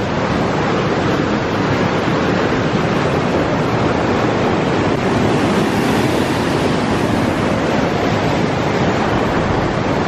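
Fast mountain river rushing over whitewater rapids: a loud, steady rush of water.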